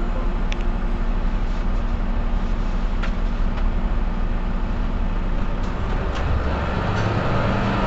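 Mercedes-Benz Citaro C2 city bus's diesel engine running steadily, with a few light clicks and rattles. About six seconds in the engine note grows louder and a faint whine comes in.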